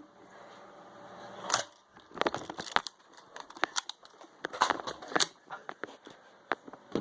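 Nerf foam-dart blasters being handled and fired: irregular clicks and knocks, with a short louder swell about a second and a half in.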